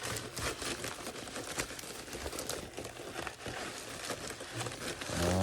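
Packaging rustling and crinkling with an irregular crackle as items are pulled out of an opened shipping box.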